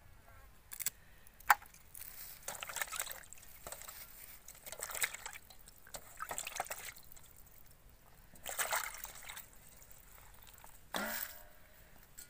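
Water splashing and sloshing in a steel plate as whole bata fish are rubbed clean by hand, in several separate bursts. A sharp click about a second and a half in, and a short gurgle near the end.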